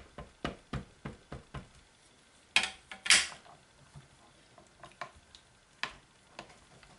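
Rubber stamp tapped repeatedly onto a StazOn ink pad, about three taps a second. Then comes a louder plastic clatter as the clear hinged lid of a Stamparatus stamp positioner is brought down, followed by a few light taps as it is pressed.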